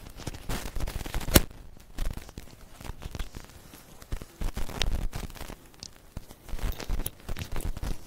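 Microphone handling noise: rustling and crackling of cloth against the microphone, with scattered knocks and clicks, the loudest about a second and a half in, as the microphone is passed on and fitted.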